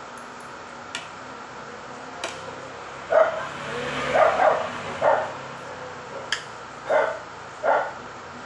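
A dog barking about six times in short barks, starting about three seconds in. A few sharp clicks of metal utensils on a plate.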